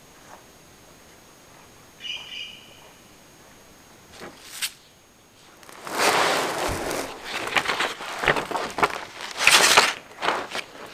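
A short bird call about two seconds in. Then, from about six seconds in, loud crinkling and rustling of a paper map being unfolded and handled.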